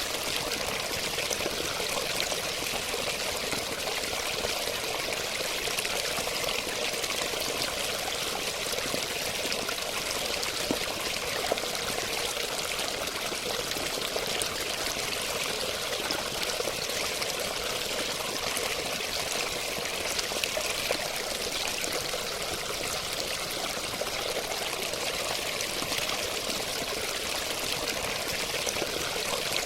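Running water pouring and trickling steadily, an even rushing splash with no change throughout.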